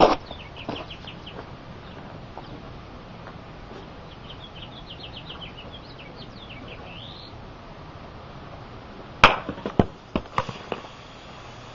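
A golf club strikes a pyramid of six aluminium soda cans about nine seconds in: one sharp, loud hit, then a few lighter clatters as the cans scatter and land over the next second and a half. Before that, a small bird chirps in quick series.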